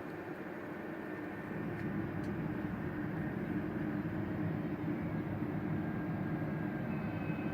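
Twin electric ducted fans of a model Airbus A320 airliner running in flight, a steady rushing whine that gets louder about a second and a half in as the plane comes nearer.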